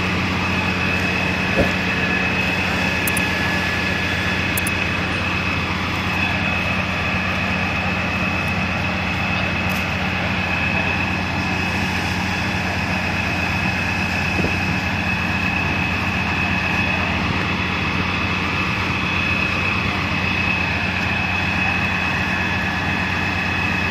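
Steady deep electrical hum at twice the 50 Hz mains frequency from energised substation equipment, over a steady rushing noise from the burning power transformer, with two faint steady high tones above.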